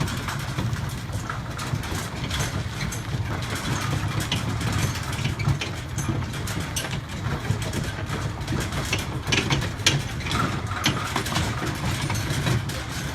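A small vehicle's engine running steadily at low revs, with scattered clicks and rattles over it.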